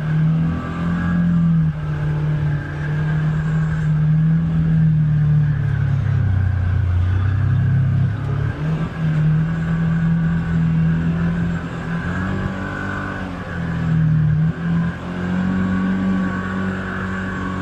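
Polaris Xpedition UTV engine running under load on a trail, its pitch rising and falling with the throttle: it sags about six seconds in and picks up again after about eight seconds.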